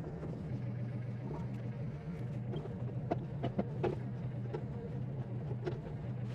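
An engine running steadily at low speed, with scattered clicks and knocks over it, several of them close together in the second half.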